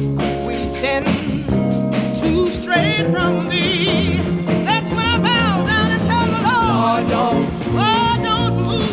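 Gospel funk 45 record from 1976 playing, the full band with steady bass notes. A high melody line with vibrato comes in about three seconds in.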